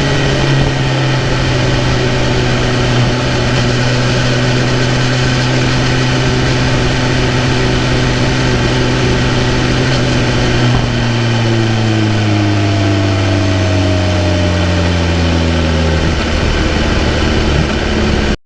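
BMW S1000RR's inline-four engine running at a steady speed, then its note falls gradually over the second half, with a further drop near the end, before cutting off suddenly.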